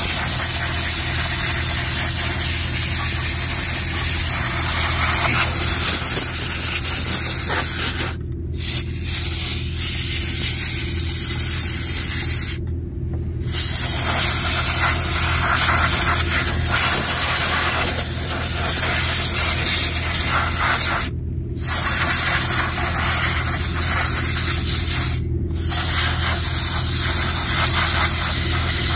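Steady, loud spraying hiss from a hand-held spray wand blasting soot out of the Cummins ISB engine's EGR passages, cut off briefly four times, over a steady low hum.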